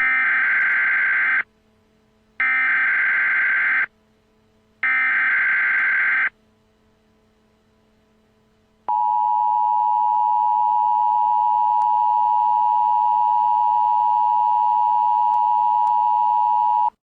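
Emergency Alert System signals. First come three identical SAME header data bursts, harsh screeching digital tones of about a second and a half each, a second apart. Then the steady two-tone EAS attention signal (853 and 960 Hz) sounds for about eight seconds and cuts off, marking the start of a tornado warning broadcast.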